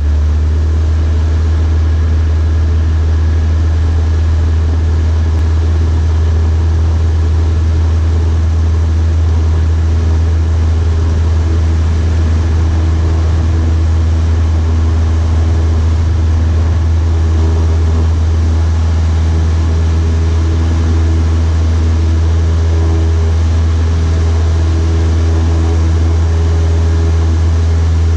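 Cessna 152's four-cylinder Lycoming O-235 engine and propeller running at takeoff power through the takeoff roll and lift-off. It is a loud, steady drone heard from inside the cabin.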